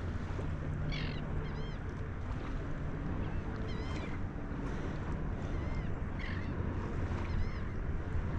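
Surf washing up on the beach with wind on the microphone, and a few short high bird chirps scattered through.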